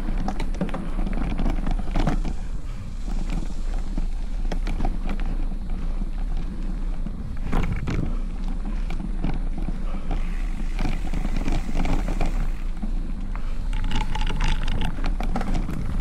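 Specialized Stumpjumper Evo mountain bike ridden along a dirt trail, heard through a camera clamped to its handlebars: a steady low rumble of tyres and mount vibration under frequent clicks and rattles over bumps, with a sharper knock about halfway through.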